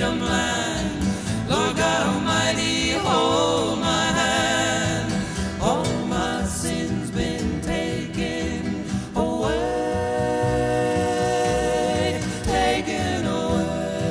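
Folk gospel song: several voices singing together in harmony, long held notes with vibrato that slide between pitches, over acoustic guitar accompaniment.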